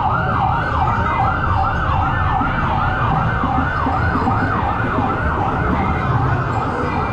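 Red Cross ambulance's electronic siren in a fast yelp, sweeping up and down about three times a second, over a low rumble of street noise.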